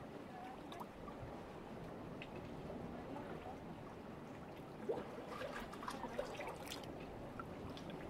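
Calm seawater lapping and trickling among rocks at the shoreline: a faint, steady wash, with a run of sharper little splashes and drips from about five seconds in.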